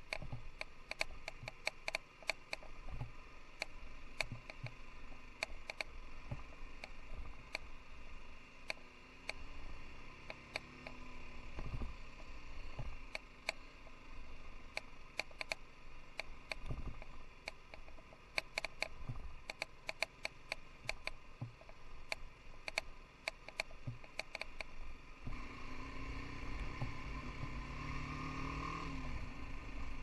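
BMW G 310 GS motorcycle riding slowly over a rough dirt track: constant rattling clicks and knocks as the bike and camera mount jolt over the bumps, above a low single-cylinder engine note. About 25 seconds in the sound turns to a steadier rush, and the engine's pitch rises and then falls.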